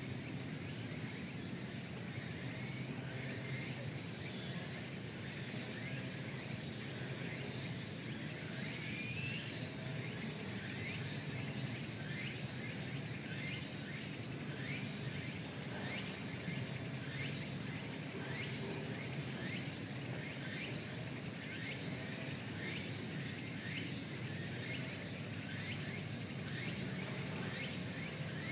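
Outdoor background noise with a steady low hum, joined from about nine seconds in by a repeated high call that slides downward, a little over once a second.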